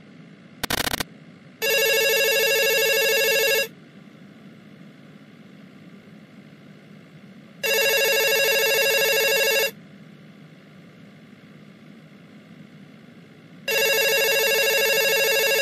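Mobile phone ringing with a trilling telephone-bell ringtone: three rings of about two seconds each, roughly four seconds apart, after a short burst of sound about half a second in. A low steady hum runs underneath.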